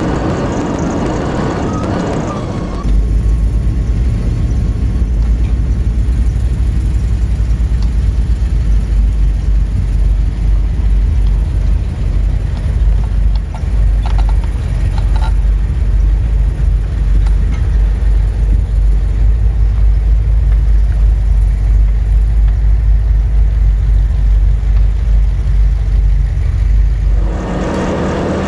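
Ford Bronco's engine running at low revs as it crawls through snow, a deep steady rumble. The rumble cuts in about three seconds in and stops shortly before the end, with lighter vehicle noise on either side.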